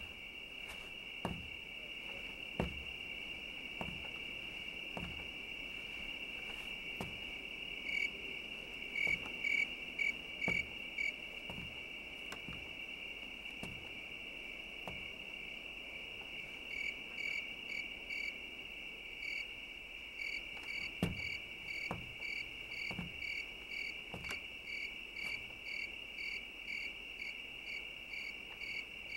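Crickets chirping: a steady high trill, with a second cricket chirping in regular pulses about two to three times a second. These pulses come in a short run a third of the way in and then run on through the last third. Faint soft knocks are scattered throughout.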